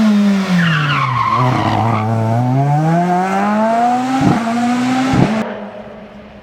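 Rally car engine slowing into a corner, its pitch falling, then accelerating hard out of it with the pitch climbing steadily. Two sharp cracks come about four and five seconds in, and near the end the sound drops abruptly to a fainter engine.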